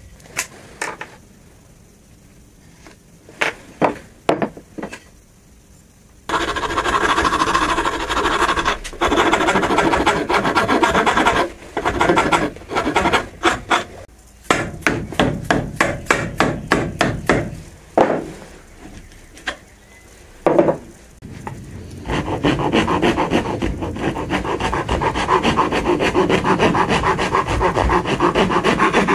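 Hand file rasping along a wooden hatchet handle to shape it, in runs of steady strokes, with separate strokes about two or three a second in the middle. Before the filing starts, a few separate hammer taps on the hatchet head in the first six seconds.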